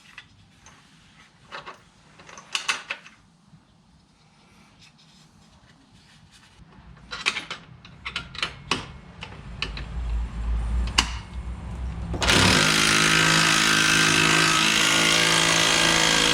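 Metal clinks and knocks as a bolt and washer are fitted to a rear differential brace. About twelve seconds in, a power tool starts and runs loud and steady for several seconds, driving the bolt home.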